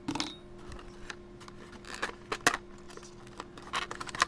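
Small padlock keys and their packaging being handled: scattered light metallic clicks and clinks, with a couple of sharper ticks about halfway through and near the end.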